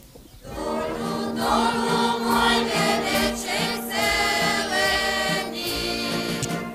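A group of voices singing a Slovak folk wedding song, starting about half a second in, sung while the bride's wreath is taken off at the capping of the bride.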